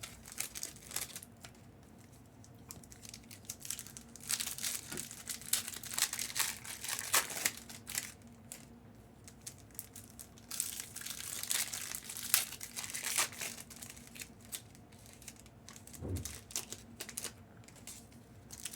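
Intermittent rustling and crinkling of things being handled, in short clusters with quieter gaps between them, and a low thump about sixteen seconds in.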